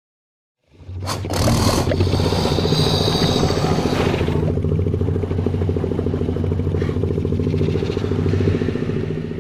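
A dinosaur sound effect for Concavenator: one long, low, rattling growl that starts about a second in, holds steady and fades at the very end.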